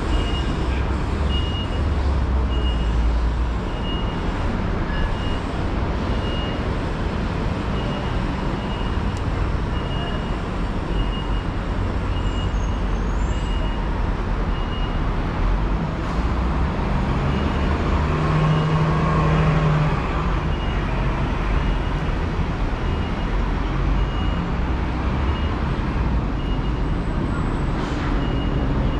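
Steady city street traffic noise with a deep rumble, and a faint high beep repeating about once a second.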